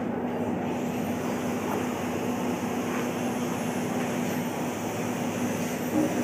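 Steady drone of running ship's machinery, with a constant low hum underneath.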